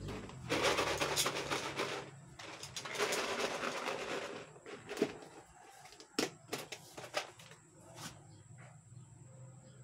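A plastic container of dog food shaken in two bursts of rattling rustle, followed by a few sharp clicks.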